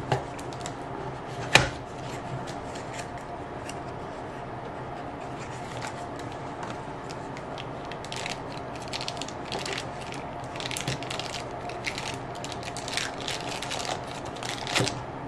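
Small cardboard boxes being handled on a tabletop, with one sharp knock about a second and a half in. From about halfway on, a plastic bag crinkling in short bursts as a micro USB cord is worked out of it.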